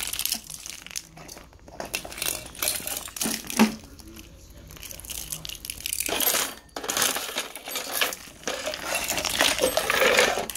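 Small plastic toys being handled and knocked on a hard tile floor: irregular clicks and clatter with rustling, busiest in the second half.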